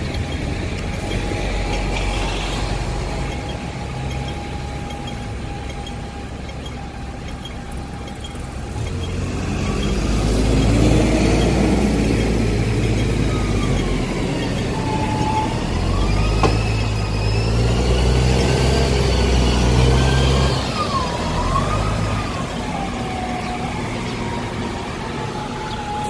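Duple-bodied Hong Kong bus nicknamed 'washing machine' running in traffic. Its engine hums steadily at first, then grows louder from about ten seconds in as it pulls. A whining tone from the driveline glides up and down with the changing speed until the end.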